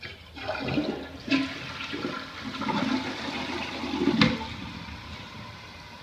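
Toto Drake toilet flushing with the tank lid off: water rushes out of the tank through the flapper valve, then tapers away. Two sharp knocks come through the rush, about a second in and about four seconds in.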